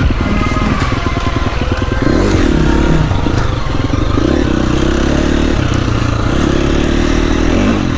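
Husqvarna 350 FC four-stroke single-cylinder dirt bike engine running under load while ridden, the revs picking up about two seconds in and then rising and falling as the throttle is worked.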